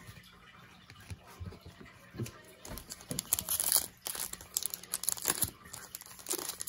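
A foil trading-card pack wrapper crinkling as it is handled and torn open. It is quiet for the first couple of seconds, then dense crackling begins about three seconds in.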